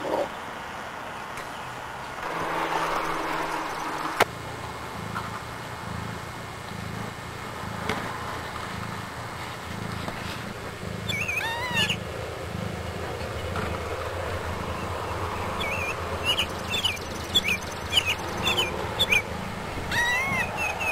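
Newborn kittens mewing in short, thin, high cries, a few at first and then more often near the end. Under them runs a low rhythmic purr from the mother cat, which starts a few seconds in.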